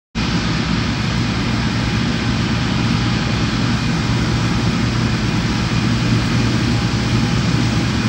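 New Holland TX 65 Plus combine harvester working in barley: a steady, unbroken drone of its engine and threshing machinery with a constant low hum.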